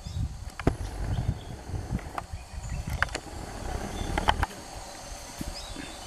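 Footsteps crunching through forest undergrowth, with scattered sharp snaps and crackles of twigs and dry leaves, over a faint steady drone of insects.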